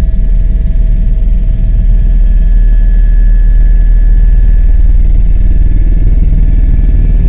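Helicopter cabin noise in flight: the loud, steady low rumble of the rotor and engine with a thin, steady whine above it, heard from inside the cabin.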